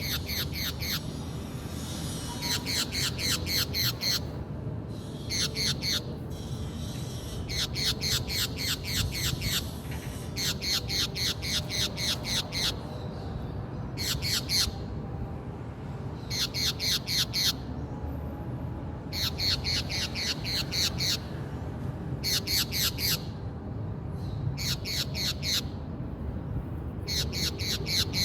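A green parakeet calling in repeated bursts of rapid, harsh squawking notes. Each burst is a quick run of notes lasting one to two seconds, and the bursts come every two to three seconds over a low steady background hum.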